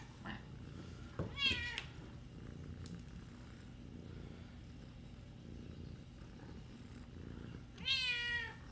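Tabby kitten meowing twice, a short meow about a second in and a longer one with falling pitch near the end, with a low steady purr between them while she is stroked.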